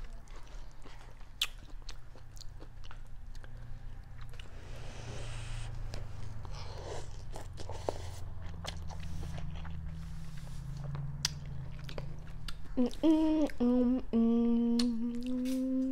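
Close-miked eating of instant ramen noodles with chopsticks: mouth smacks, chewing and noodle slurping with small clicks. Near the end a woman's voice hums a few held notes over the chewing.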